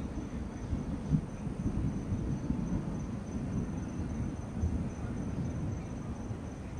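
Night insects, crickets, trilling in one steady high tone over a continuous low rumbling noise.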